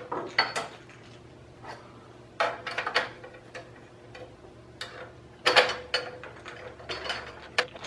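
Clicks and knocks as the slot-cover housing is fitted onto the back of a PC case and its screw is driven with a screwdriver. They come in a few short clusters, about two and a half seconds in, about five and a half seconds in, and near the end.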